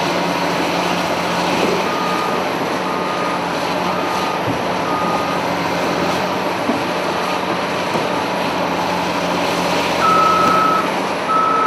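Cat 992K wheel loader's diesel engine running steadily while a reversing alarm beeps, faintly about once a second at first, then louder and longer near the end.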